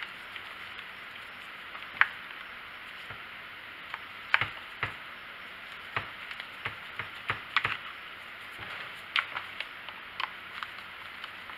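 Irregular plastic clicks and knocks as an air filter is pressed and fitted onto a Stihl 290 chainsaw's carburetor. The sharpest come about two and four seconds in.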